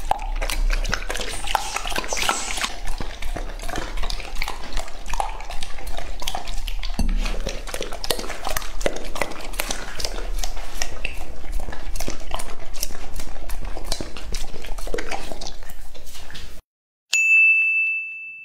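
A Labrador retriever licks an empty plate clean in a quick, uneven run of wet laps and tongue smacks against the plate, which stops suddenly near the end. One bright ding rings out just after.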